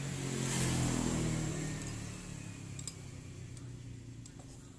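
A passing motor vehicle's engine, swelling to its loudest about a second in and then slowly fading away.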